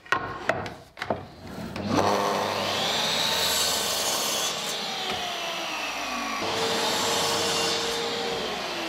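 Sliding compound miter saw crosscutting oak boards. A few knocks as the board is set against the fence, then about two seconds in the motor whines up and the blade cuts through. The saw starts again near seven seconds in and begins to wind down at the end.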